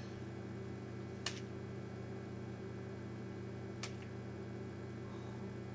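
Two short, light taps about two and a half seconds apart as a small ball is caught in a hand during a game of catch, over a steady low hum.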